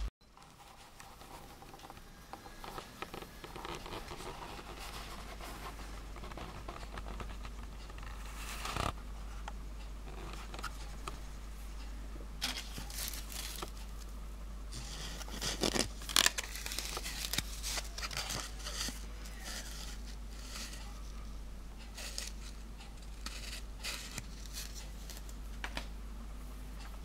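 Mini wood lathe turning a wooden blank while a cutting tool scrapes and shaves the spinning wood, in uneven scratchy bursts; the sharpest scrapes come around the middle.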